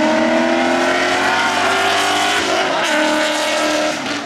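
A Ford Mustang and a Chevrolet Camaro racing past at full throttle, their engine notes climbing in pitch. About halfway through the pitch breaks off for a gear change, then climbs again, before the sound drops away sharply near the end.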